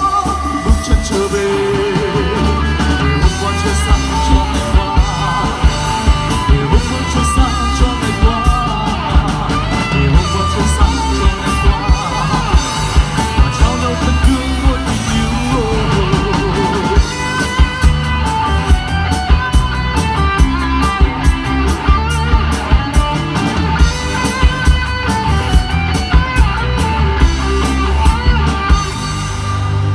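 Live rock band playing a song: a male singer through the PA over electric guitars, bass and a drum kit keeping a steady beat.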